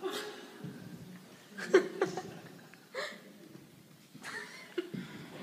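Scattered short chuckles and laughs from an audience, with quiet gaps between them; the loudest comes a little under two seconds in.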